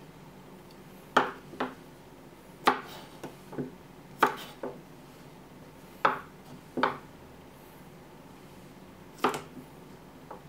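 Kitchen knife and cucumber knocking on a wooden cutting board: about ten single sharp knocks, spaced irregularly rather than in a steady chopping rhythm, as a cucumber is cut into rounds.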